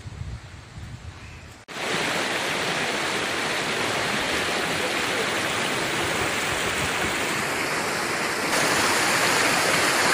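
Water rushing and splashing over boulders in a mountain stream, a loud steady rush. It starts suddenly about two seconds in, after a quieter low rumble, and gets louder again near the end.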